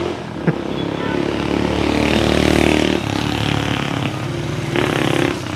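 A motorcycle engine running as it passes on the street, loudest about two to three seconds in, with a sharp click about half a second in.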